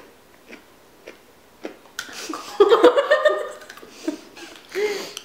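A young woman bursting into giggling laughter about two seconds in, lasting a second or so, with a second short laugh near the end. Before it come a few faint crunches of a hard, crunchy biscuit being bitten and chewed.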